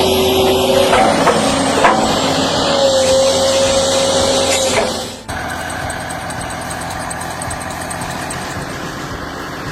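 Heavy machinery engine running. About five seconds in, the sound cuts abruptly from a noisier stretch with a whine to a steadier, even engine hum.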